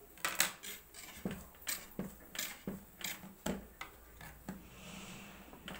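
Hands patting and shaping a lump of pastry dough on a wooden tabletop: a quick run of soft slaps and knocks, about three a second, stopping about four and a half seconds in, with one more knock near the end.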